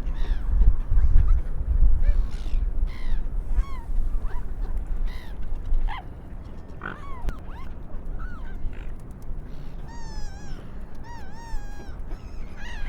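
Gulls calling: a string of short mewing and squawking cries, then a run of quick wavering calls in the second half. A low rumble sits under the first half.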